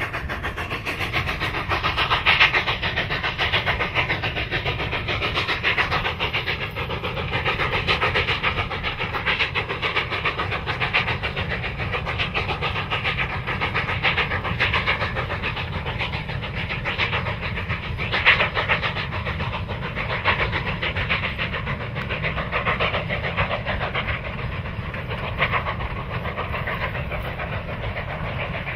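Narrow-gauge K-36 2-8-2 steam locomotive working hard with a freight train: rapid exhaust beats from the stack, mixed with the clank and rattle of the freight cars rolling past.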